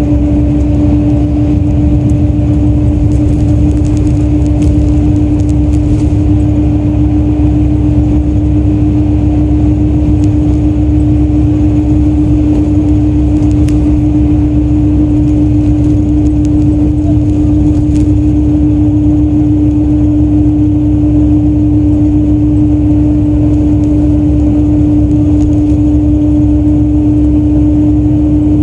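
Hino Selega coach (QRG-RU1ASCA) running at a steady pace: a constant droning tone over engine and road rumble, with no change in speed.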